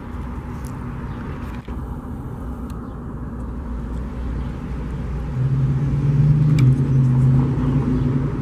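A heavy engine running with a low rumble; about five seconds in, a steady low drone comes in and grows louder.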